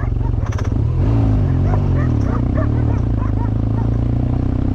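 BMW R1200GS boxer-twin engine running at low revs, its pitch dipping and rising about a second in, while stray dogs bark repeatedly.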